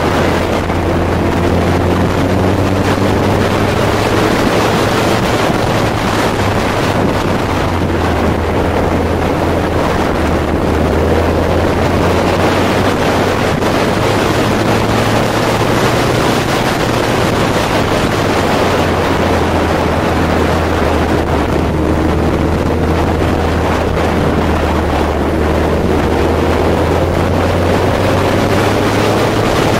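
Kawasaki Z1000's inline-four engine running at road speed, its note rising and falling with the throttle, under heavy wind noise on the microphone.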